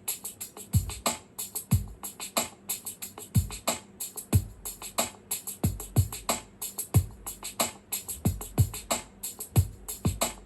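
Music playing through a portable Bluetooth speaker at half volume with its bass EQ on: a drum-machine beat with deep kicks that drop in pitch and fast hi-hat ticks between them.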